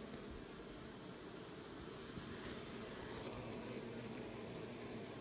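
Honeybees humming steadily as they crowd over the hive entrance. A faint high chirp repeats about twice a second above the hum.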